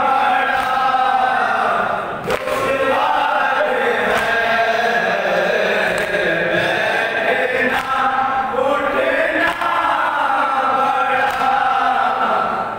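A group of men singing an Urdu noha, a Shia lament, in unison: a lead reciter on a microphone with a male chorus in long, drawn-out lines. A few sharp chest slaps of matam sound between the sung lines.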